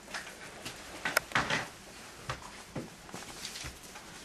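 A scattered series of short clicks and knocks, the sharpest and loudest about a second in.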